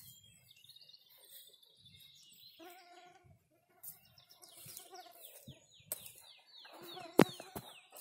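Songbirds singing: a high trilling note, then a quick run of repeated descending whistled notes. In the middle comes a lower, drawn-out call with a strong pitched tone, and a single sharp knock sounds near the end.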